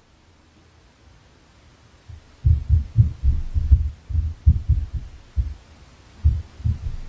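Inter-floor impact noise: heavy footsteps in the flat upstairs, coming through the ceiling as dull low thuds. They start about two and a half seconds in as a quick, irregular run of thumps, then come more sparsely near the end.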